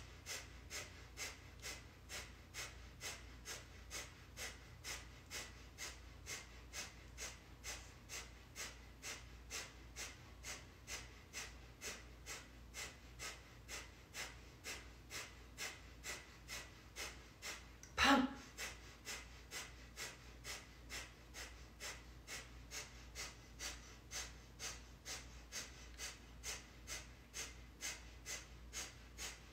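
Breath of fire: a fast, even run of short forceful breaths pumped from the navel, about two and a half a second. One brief louder sound breaks in about two-thirds of the way through.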